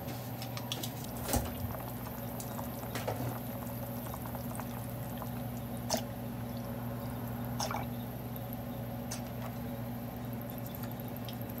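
Soy milk poured from a carton into a pot of simmering vegetable soup. A few light clicks and knocks sound over a steady low hum.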